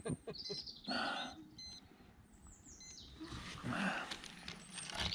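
Birds chirping, a few short, high whistled calls, over faint rustling.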